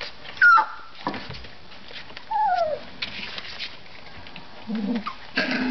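Three-week-old collie puppies at play: a sharp, loud yelp that drops in pitch about half a second in, a falling whimper around two and a half seconds, and short yips near the end.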